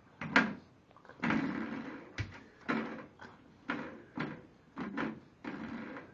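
Spring doorstop being bitten and pulled by an English Bulldog puppy, twanging and rattling about eight times, each twang ringing briefly and dying away.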